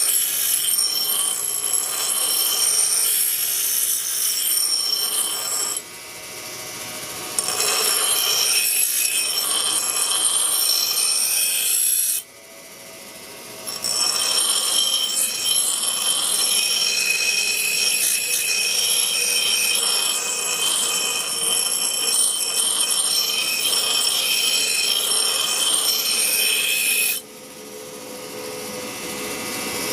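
Bench grinder wheel grinding a steel railroad-spike knife blade flatter: a loud rasping hiss with high ringing tones, in three long passes broken by two short lulls.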